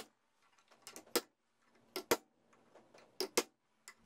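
Sharp metallic clicks, mostly in pairs about once a second, as the teeth of a cheap bimetal hole saw are bent outward one by one to widen its cut.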